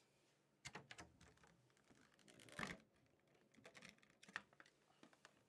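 Faint scattered taps, clicks and rustles of a sleeved trading card and clear plastic being handled, with a sharper click about four seconds in.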